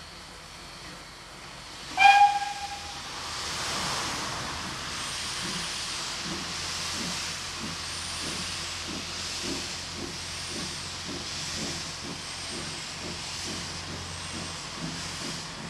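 Polish Pt47 steam locomotive giving a short whistle blast about two seconds in, then starting away with its train: a steady steam hiss and an even beat of exhaust chuffs that slowly quickens.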